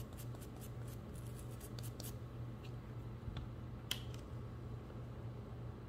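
Faint, scattered light clicks and scrapes of small parts being handled while the threaded hole in the bipod body is cleaned out, over a low steady hum.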